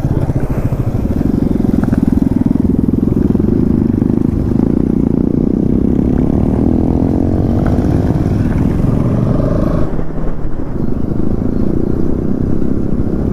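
Motorcycle engine running while riding, heard from on the bike, its note rising and falling midway through as the throttle changes.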